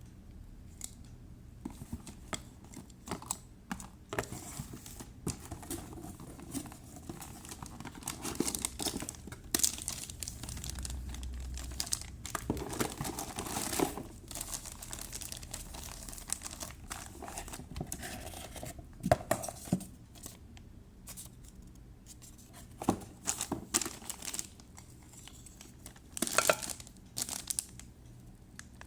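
Packaging being handled during unboxing: plastic and paper crinkling and rustling, with scattered clicks and knocks. The loudest crackles come about two-thirds of the way through and again near the end.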